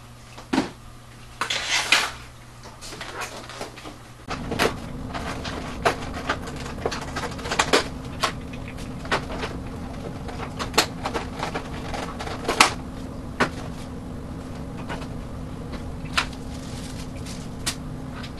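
Hands handling foam and plastic model-airplane parts on a table: irregular sharp clicks and knocks, with a short rustle about two seconds in. From about four seconds a steady low hum sets in under the clicks.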